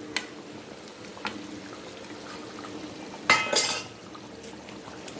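Metal kitchen utensils against a cooking pot: a few light clicks, then a louder ringing metallic clatter about three and a half seconds in, over a faint steady hum.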